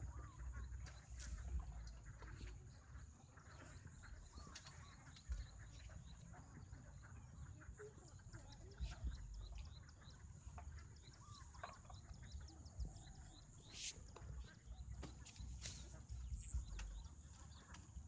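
Faint, scattered animal calls over a steady high hiss and a low rumble.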